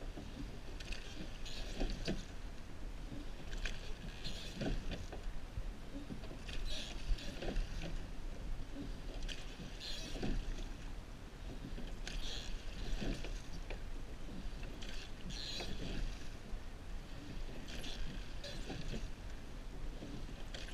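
Surf boat crew rowing: oar blades splashing at each catch and water rushing along the wooden hull, in an even rhythm of about one stroke every three seconds over a steady low rumble.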